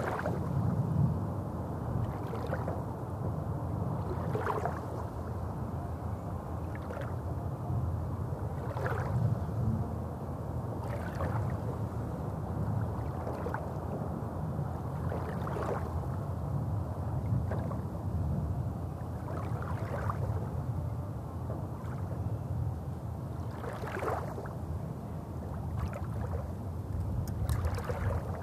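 Small lake waves lapping against a pebble shore, a soft splash about every two seconds, over a low steady rumble.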